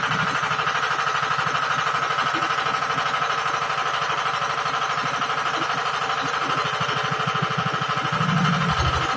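Engine of a hydraulic water-well drilling rig running steadily with a fast, even knocking pulse, briefly louder about eight seconds in.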